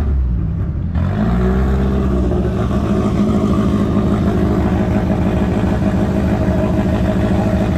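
A car engine running at a steady idle, its pitch rising briefly about a second in before settling.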